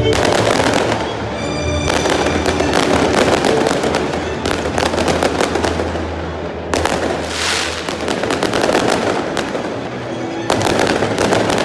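Fireworks going off in a dense, rapid crackle of many small bursts, swelling in louder clusters several times.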